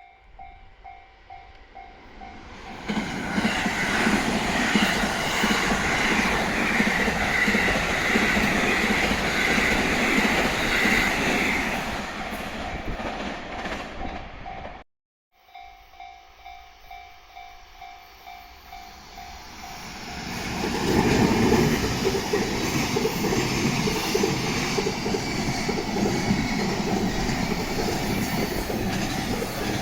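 Japanese level-crossing warning bell ringing with a rapid pulsing two-tone clang, then a train passing the crossing loudly for several seconds. After a cut about halfway through, the bell rings again and a second train rolls through.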